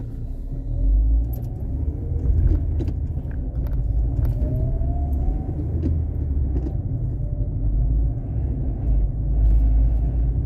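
Car cabin noise while driving: a steady low engine and road rumble, with small rattles and clicks.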